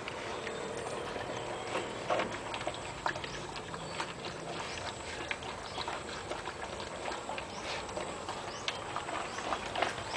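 Two Belgian Malinois eating dry kibble from a plastic bowl: irregular crunching and clicking of teeth on the kibble and the bowl.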